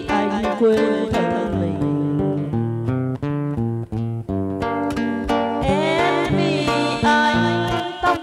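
Acoustic guitar plucking a melody with quick runs of notes, and a woman's singing voice coming in over it about two-thirds of the way through.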